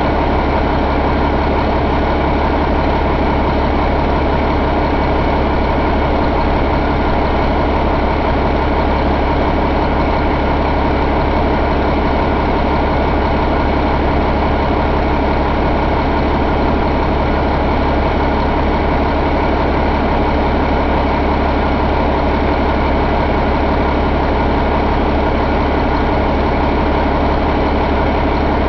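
Cummins ISL inline-six diesel engine idling steadily.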